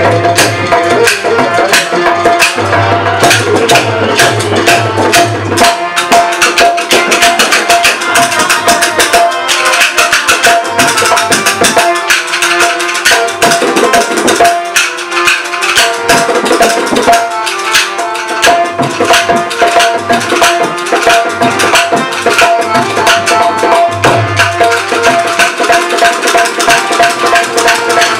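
Rajasthani Manganiyar folk music played without singing: fast dholak hand-drumming and clacking khartal over a held harmonium note.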